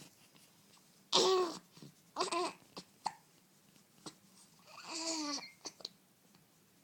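A baby with hiccups babbling: three short high-pitched vocal sounds, the first about a second in and the longest near the end, with small hiccup clicks between them.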